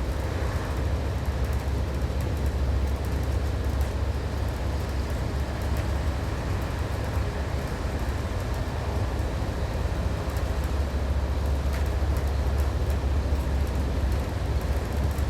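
Diesel railcar heard from the driver's cabin while under way: a steady low engine and running rumble under an even wash of wheel and track noise.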